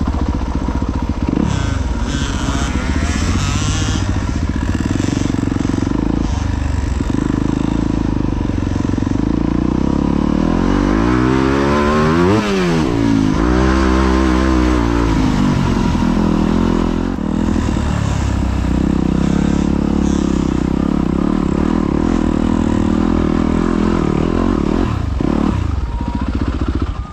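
Off-road dirt bike engine running under load while being ridden, its revs rising and falling; about halfway through the pitch sweeps down and back up again.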